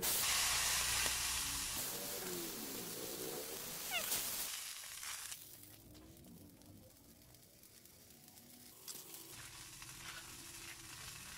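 Liquid poured into a hot wok over a wood fire, setting off a loud sizzle that starts at once and dies down over about four seconds to a faint sizzle.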